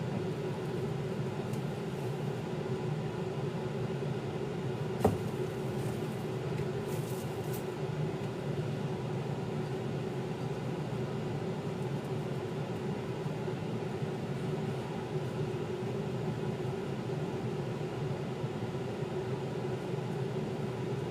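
A steady machine hum, with a single sharp click about five seconds in.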